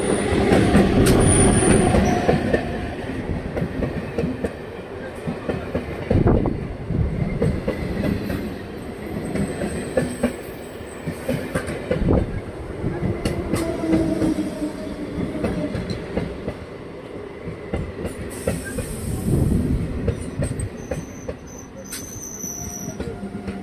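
A 12-coach electric multiple-unit suburban local train passing close by, loudest as the front car goes past, then a long run of coaches clattering over the rail joints. Thin wheel squeals come in here and there.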